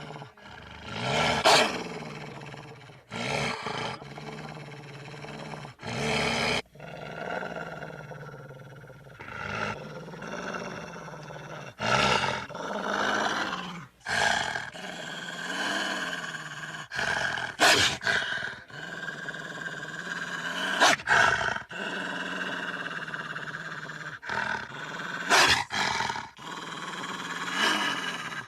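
Wolves growling and snarling: a low, continuous growl broken by a string of loud, sharp snarls every few seconds.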